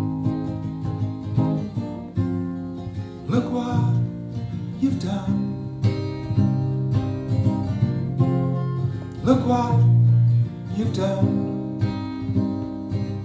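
Acoustic guitar strumming chords, as an instrumental passage of a folk-style song.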